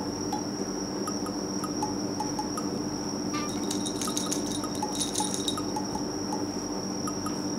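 Light, cute background music of chime-like plinking notes over a steady high tone, with a brief flurry of chime strikes about four to five seconds in.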